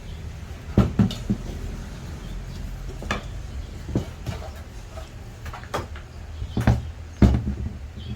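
Irregular knocks and clacks of hard parts or tools being handled and set down, about eight in all, the loudest a little under a second in and about seven seconds in.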